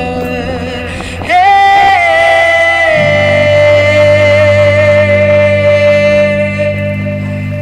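Rock song: a singer comes in about a second in and holds one long note for some five seconds, over sustained band chords and a low bass line.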